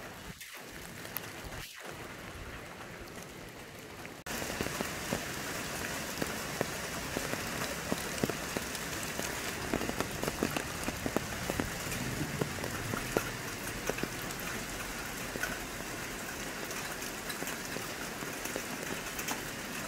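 Steady rain falling, a dense hiss of many separate drop hits. It is quieter at first and turns suddenly louder about four seconds in.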